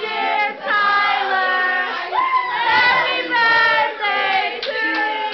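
A group of young voices singing loudly together: several voices at once holding notes that slide up and down in pitch, with short breaks between phrases.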